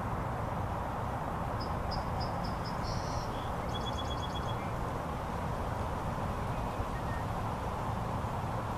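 Steady low outdoor background rumble. About two seconds in a small bird chirps a quick series of high notes, then gives a short rapid trill.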